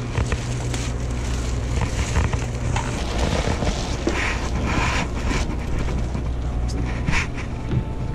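Clear plastic bag crinkling and rustling as it is handled and lifted, over a steady low hum.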